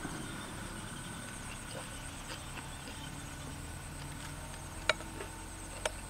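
Someone eating close to the microphone: chewing noodles and raw vegetables, with two sharp clicks near the end, over a steady high insect buzz.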